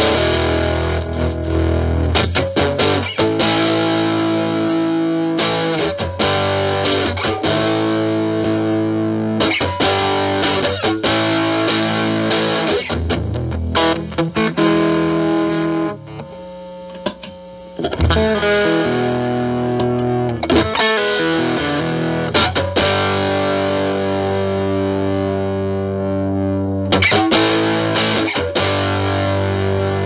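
Stratocaster electric guitar played through an Electro-Harmonix Germanium 4 Big Muff Pi, with both its germanium overdrive and distortion sides on, into a Marshall Valvestate amp's clean channel. It gives thick, distorted, sustained chords with sharp strummed attacks. About halfway through, the playing drops briefly to quieter ringing notes.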